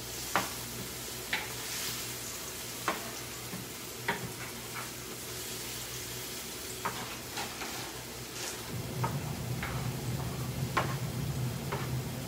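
Pasta sauce sizzling in a frying pan while a spoon stirs it, with scraping taps against the pan every second or so. A low hum comes in about two-thirds of the way through.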